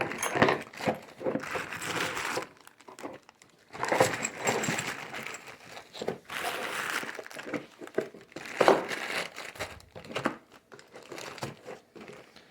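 Packing material crinkling and rustling in irregular bursts as small tools and parts are put back into their box, with scattered small knocks and clicks.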